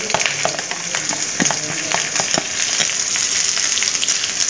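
Chopped onions going into hot oil with whole spices in a metal kadhai, sizzling steadily. Scattered crackles come in the first couple of seconds and then thin out.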